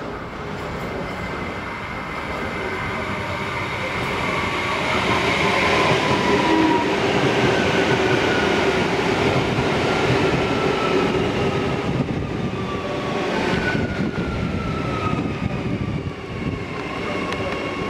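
Bombardier-built Adelaide Metro 4000-series electric train running past, growing louder to a peak about a third of the way in, with a whine that falls in pitch. About two-thirds of the way in the sound changes abruptly to another 4000-series train pulling in to the platform, its whine falling as it slows.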